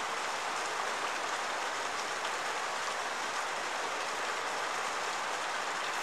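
Rain falling steadily, an even rushing noise with no change in level.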